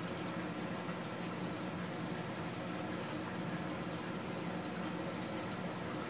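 Saltwater reef aquarium's water circulation: a steady trickling, bubbling flow of water.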